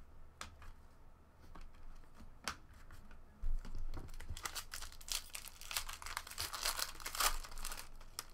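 Foil wrapper of a 2013 Upper Deck SPX football card pack being torn open and crinkled by hand. A few light clicks come first, then a dense spell of crinkling from about three and a half seconds in until near the end.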